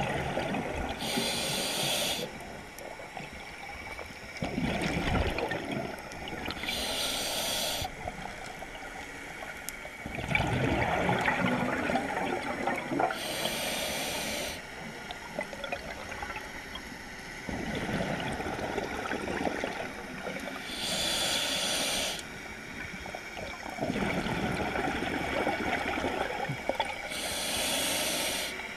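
Scuba diver breathing through a regulator underwater. A hissing inhale comes about every six seconds, five in all, and each is followed by a longer, bubbling rush of exhaled bubbles.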